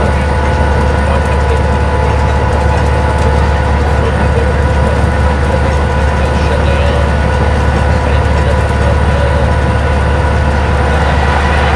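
Cabin sound of a transit bus cruising at freeway speed: the steady drone of its Detroit Diesel Series 50 four-cylinder diesel engine and road noise, with a steady whine over it.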